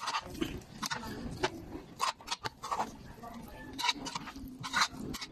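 A utensil mixing chopped pork and onions in a metal bowl: irregular clinks and scrapes against the bowl, with faint voices behind.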